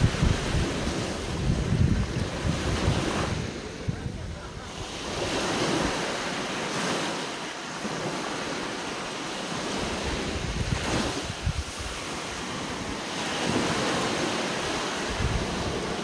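Small waves breaking and washing up a sand beach, the surf swelling and falling back every few seconds. Wind buffets the microphone in the first few seconds.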